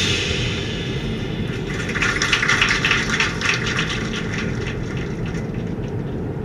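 Car driving at night heard from inside the cabin: a steady low road-and-engine rumble. About two seconds in, a rushing hiss swells for a couple of seconds and then fades back.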